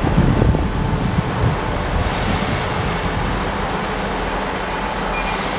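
Class 158 diesel multiple unit's underfloor diesel engines running as the train moves slowly along the station, a steady low rumble under a rushing wind noise on the microphone.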